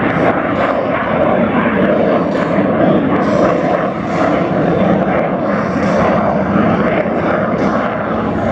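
CF-18 Hornet fighter jet's twin General Electric F404 turbofans in a fast fly-by: loud, steady jet noise with a faint crackle.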